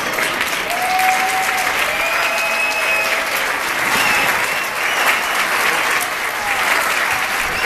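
Audience applauding, steady dense clapping with a few voices heard over it.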